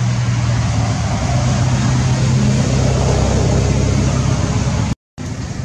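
A motor vehicle engine running steadily with a low, even hum and hiss; the sound cuts out for a split second near the end.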